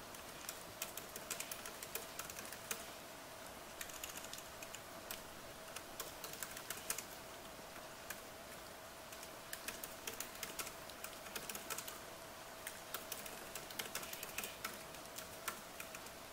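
Typing on an Apple MacBook's laptop keyboard: quick runs of light key clicks, with a short pause near the middle, over a steady background hiss of rain.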